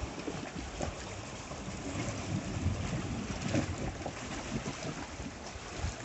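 Calm sea lapping and sloshing against rocks in shallow water, with wind buffeting the microphone in irregular low rumbles.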